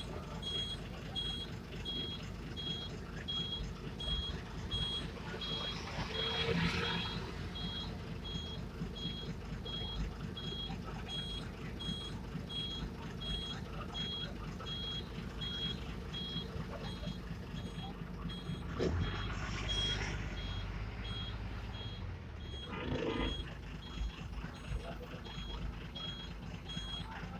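A vehicle reversing alarm beeping steadily, a high beep about twice a second, over the low running of a bus engine. A few louder swells of noise rise and fall about six, nineteen and twenty-three seconds in.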